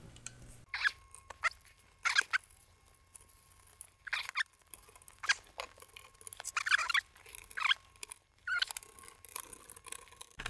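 Workbench handling of wires and plastic parts inside a TRS-80 Model 200's case, played back nine times fast: scattered short, high squeaky chirps.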